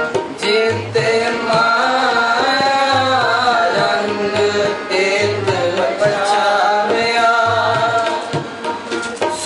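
Shabad kirtan: a man singing a Gurbani hymn to his own harmonium accompaniment, with a tabla's low drum strokes keeping the rhythm.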